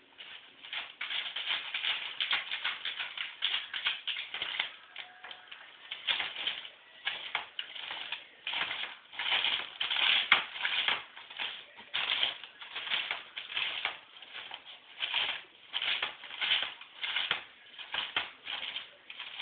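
Newspaper rustling and crinkling in short irregular bursts as a small dog pushes its nose into the sheets lining a plastic tub, burying a snack.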